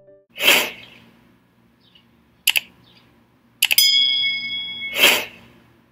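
Subscribe-button animation sound effects: a whoosh, a mouse click about two and a half seconds in, then a quick run of clicks and a bell ding ringing for about a second, and another whoosh near the end.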